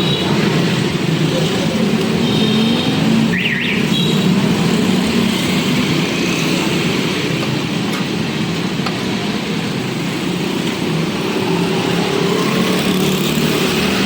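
A steady, loud machine running with a noisy hum and hiss throughout, with a brief high rising squeak about three and a half seconds in.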